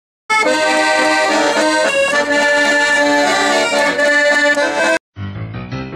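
Piano accordion playing a sustained, chordal tune, which cuts off abruptly about five seconds in. A moment later a different, quieter piece of music starts, with keyboard notes repeating at a steady beat.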